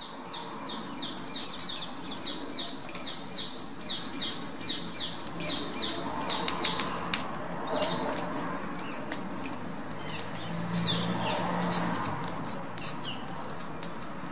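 A bird chirping and whistling: a run of quick, high, downward-sweeping chirps, broken by short held high whistles that are loudest around a second in and again near the end.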